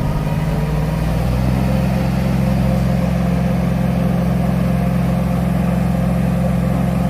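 An engine running steadily, its pitch rising slightly about a second in and then holding even.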